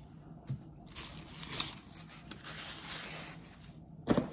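Soft rustling and crinkling of a paper napkin being handled, with a few small clicks, then a louder thump near the end.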